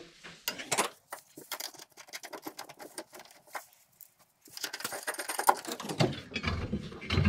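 Small metal hardware being handled: light clicks and rattles as a bolt and conical washer are fitted by hand to a hitch bracket on a steel truck frame rail, with a denser stretch of rattling and scraping from about halfway through.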